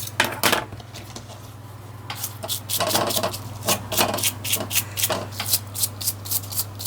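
Stiff, cut-down paintbrush bristles scrubbing dust out of an opened TV remote control: quick scratchy brush strokes, about three a second, pausing briefly about a second in.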